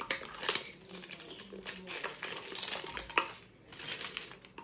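Plastic toy packaging being handled and opened, with irregular crinkling and crackling throughout.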